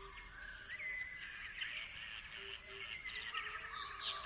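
Faint outdoor ambience of several birds chirping and whistling in short calls, over a steady high insect-like hiss.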